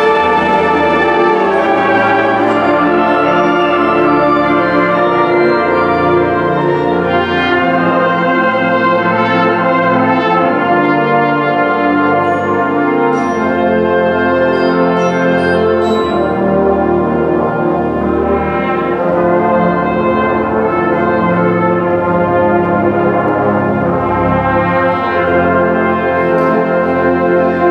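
Concert band of high-school wind players playing a slow passage in long held chords, with the brass prominent.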